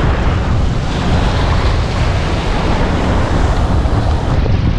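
Wind buffeting the microphone over the steady wash of surf in the shallows.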